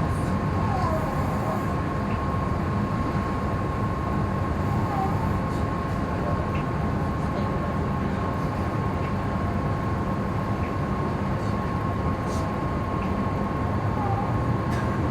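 Inside a stationary Meitetsu electric train car buffeted by typhoon wind and rain: a steady low rumble with a constant thin tone over it. Faint short squeaks now and then are the car body creaking as it is rocked.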